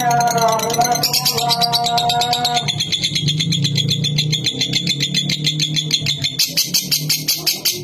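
Lovebird singing a long, fast chattering trill ('ngekek'): a rapid, unbroken run of high-pitched chirps lasting several seconds, over a low steady hum.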